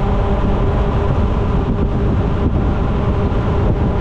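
Side-by-side utility vehicle's engine running steadily as it drives, with a constant drone and heavy rumble of wind and travel noise.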